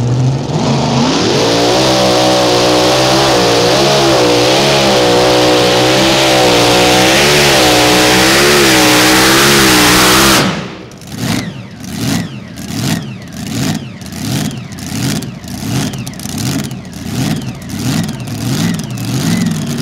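Mini rod pulling tractor's engine at full throttle under load: the revs climb about a second in and hold high and wavering. About ten seconds in the sound drops suddenly, and the revs then surge up and down over and over, about one to two times a second.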